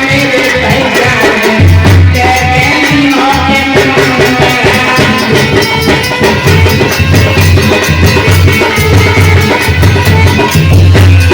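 Instrumental passage of a Hindi folk-style devotional song (Bhim geet) without singing: a fast, steady percussion rhythm over a deep pulsing bass and melody.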